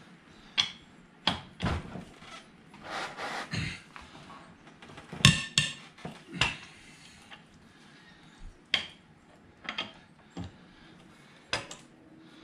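Irregular metal clanks and clicks of a socket wrench being fitted to and worked on an ATV wheel's lug nuts, with a short stretch of scraping about three seconds in and the loudest knock about five seconds in.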